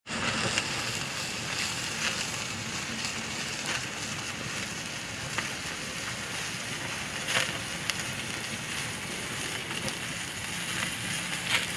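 Freshly lit charcoal and apple- and cherry-wood chunks burning with open flames in a Santa Maria grill's firebox: a steady rushing sound with a few sharp crackles and pops.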